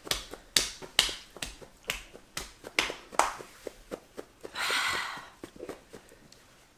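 Quick, irregular sharp lip and tongue smacks from people with mouths burning from an extremely hot chili chip, then a breathy hiss of air drawn in through the mouth about four and a half seconds in.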